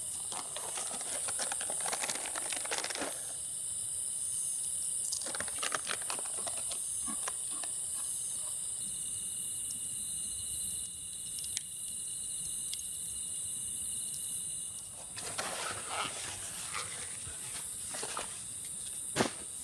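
A steady high-pitched insect chorus drones throughout. Spells of rustling and clicking handling noise come over it near the start, about five seconds in, and again near the end.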